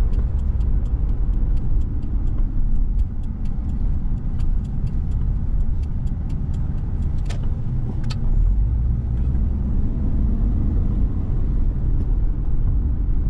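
A car driving on a suburban road, heard from inside the cabin as a steady low rumble of engine and tyres. A run of light ticks sounds through the first half, with two sharper clicks a little past the middle.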